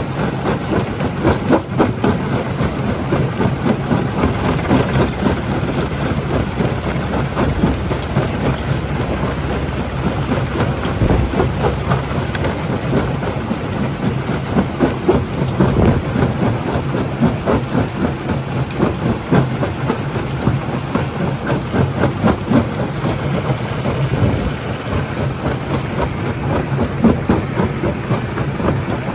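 Primary jaw crusher running and crushing rock: a steady, heavy machine rumble filled with dense, irregular knocks and clatter of stone breaking and tumbling.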